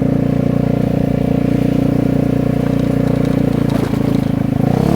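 Vespa GTS 250's single-cylinder four-stroke engine running at a steady speed on the move, through a loud aftermarket exhaust.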